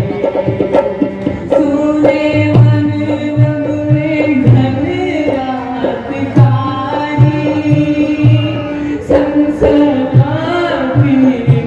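Indian stage music: a voice singing in ornamented, gliding phrases over a steady held note and regular low hand-drum strokes.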